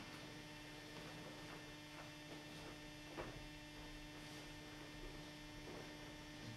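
Steady low electrical hum at a low level, with a few faint knocks, the clearest about three seconds in.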